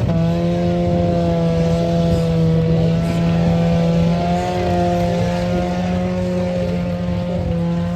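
Several demolition-derby compact cars' engines idling together, a loud steady drone whose pitch wavers only slightly.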